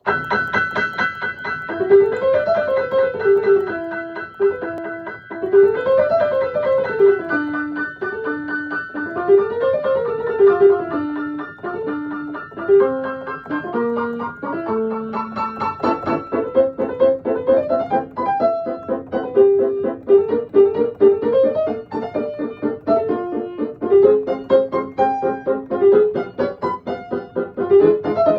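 Solo piano playing a light, bell-like piece: a high note repeats steadily above a middle-register melody that sweeps up and down. About halfway through, the high repeated note drops away and the playing becomes fuller and more evenly rhythmic.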